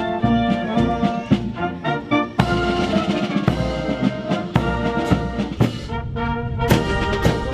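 Brass band music: trumpets and trombones playing with drums beating a steady rhythm.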